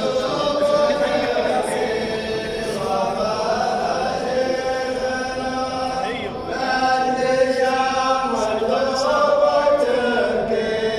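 A group of men chanting together in long sung phrases, the poetry chant of the Saudi ardah sword dance, with a short break about six seconds in.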